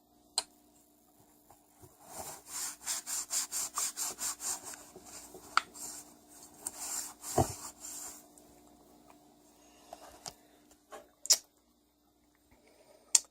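Rag rubbing a Tecumseh engine piston clean, a run of quick scrubbing strokes, about four a second, that stops partway through, followed by a few light clicks.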